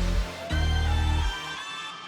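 Background hip-hop music in an instrumental break without drums: held bass notes under a single tone that rises slowly in pitch.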